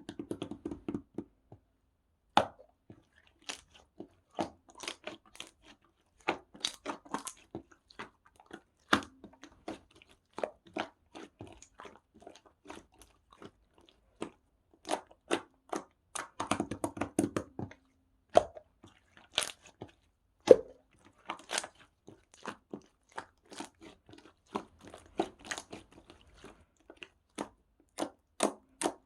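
Slime being squished and pressed by hand: irregular sticky clicks and pops, bunched into quick runs at times, with no talking.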